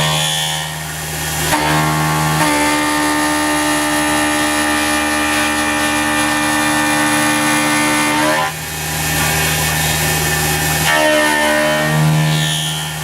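CNC mill's 3/4-inch four-flute end mill, spinning at about 5,000 rpm under coolant, face milling a block of metal stock: a loud pitched cutting whine with several overtones over a hiss. Its tone shifts a couple of times early on, dips briefly past the middle as the cut changes, and comes back.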